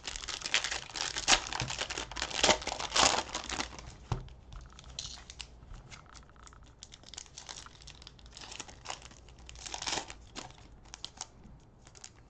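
Plastic trading-card pack wrappers crinkling and tearing as a Prizm cello pack and its foil bonus pack are opened by hand. The crinkling is densest for the first four seconds, then thins to lighter, scattered rustling.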